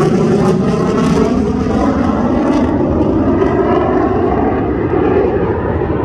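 F-16 fighter jet's engine roaring in flight overhead, a steady loud roar whose higher hiss fades over the few seconds as the jet pulls away.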